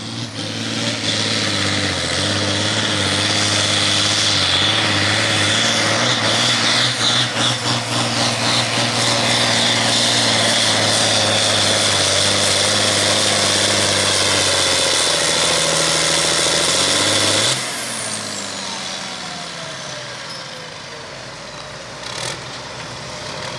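John Deere 6030 tractor's six-cylinder diesel running under full load, pulling a weight-transfer sled: a loud, steady drone for about 17 seconds. It is then suddenly throttled back as the pull ends, and a whine falls in pitch as the engine winds down to idle.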